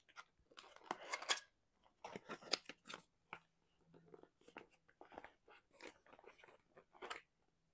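Fingers and nails picking and scraping at the sealed end flap of a small cardboard box, trying to prise it open: faint, irregular scratching and crinkling with small cracks.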